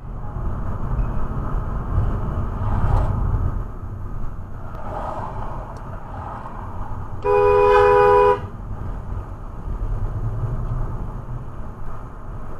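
A car horn blows once, a steady blast of about a second midway through, over a steady low rumble of road and engine noise from a moving car.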